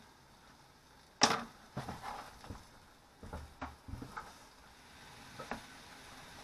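Kitchen clatter at a galley worktop: a sharp knock about a second in, then a run of lighter knocks and taps as a knife and food are handled on a plastic chopping board.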